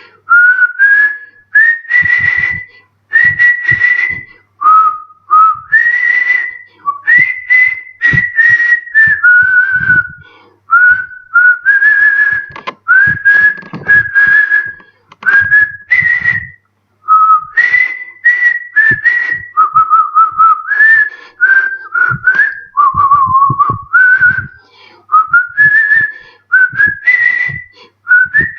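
A man whistling a melody through pursed lips: a single clear tune in short phrases of held notes, many of them sliding up into pitch, with brief pauses between phrases.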